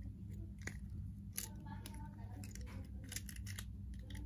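Plastic shell halves of a Honda Brio remote key fob clicking as they are pressed and snapped back together, several small sharp clicks over a low steady hum.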